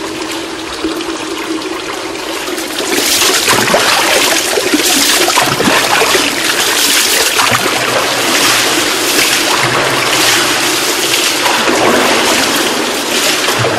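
Water pouring and splashing in a Turkish bath, a steady rush with scattered splashes that grows louder about three seconds in.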